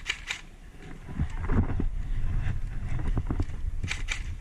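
A couple of sharp airsoft gun shots at the start and two more about four seconds in. Between them run low thuds and rumble, like running footsteps jolting a body-worn camera.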